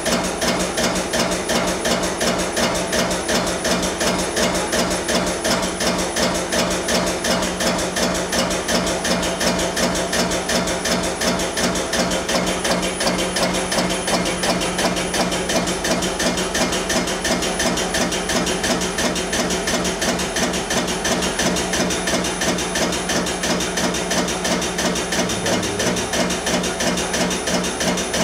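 Air-driven liquid pump cycling in a fast, even rhythm of strokes over a steady hum, pumping water into a pipe sample under burst test while the sample swells and the pressure falls.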